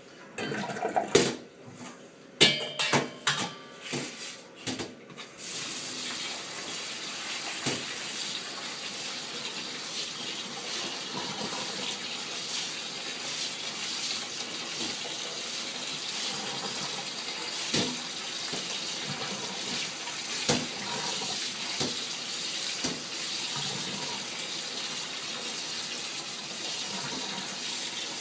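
Rice being washed in a stainless-steel bowl at a kitchen sink: a few sharp metallic knocks and clatters in the first five seconds, then the tap running steadily into the bowl, with an occasional clink.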